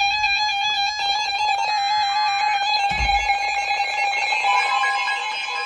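NOAA Weather Radio warning alarm tone for a severe thunderstorm warning: one steady, single-pitched tone, harsh through the weather radio's speaker, with a fainter second tone joining about halfway through.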